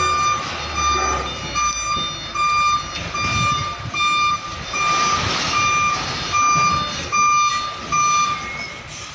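Container truck's reversing alarm beeping evenly, about one beep every 0.7 seconds, over the low running of its diesel engine as the rig backs up. The beeping stops shortly before the end.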